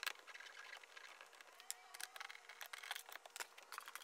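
Near silence with faint, irregular light clicks and taps.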